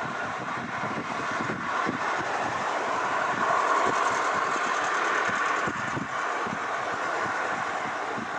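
KC-767 tanker's twin turbofan engines heard on final approach to landing: a steady jet noise that swells to its loudest about halfway through, then eases a little.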